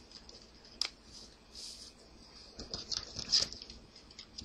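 Trading card and foil pack wrapper being handled: soft rustling with scattered light clicks, busiest a little past halfway.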